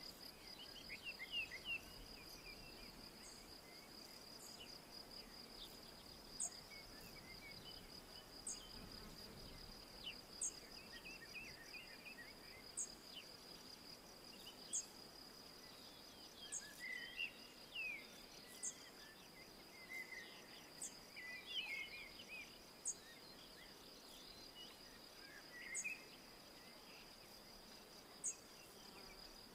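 Faint woodland ambience: a steady, high, pulsing insect trill of a cricket-like insect carries on throughout, with a thin high note repeating about every two seconds and scattered soft bird chirps and twitters.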